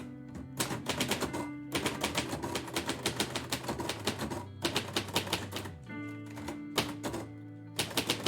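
Typewriter being typed on: a fast run of key strikes for about five seconds, a pause, then a few more strikes near the end. Instrumental music plays underneath.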